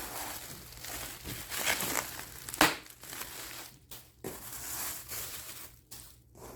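Packing material being crinkled and pulled apart while unwrapping an item, in irregular rustling handfuls, with one sharp click about two and a half seconds in.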